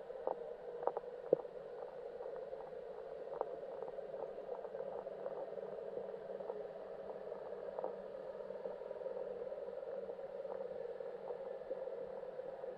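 Underwater ambience picked up through a submerged camera: a steady muffled hum with scattered faint clicks and ticks, a few sharper ones in the first second and a half.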